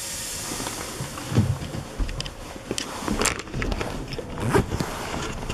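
Narrow-gauge steam train standing at a station: a steam hiss for about the first second, then irregular knocks and a few low thumps.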